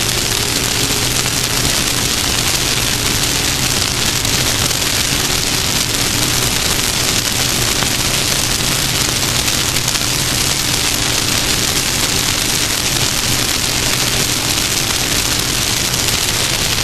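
Off-road race vehicle running at a steady speed: a loud, even rush of wind and dirt noise with the engine's drone faintly underneath.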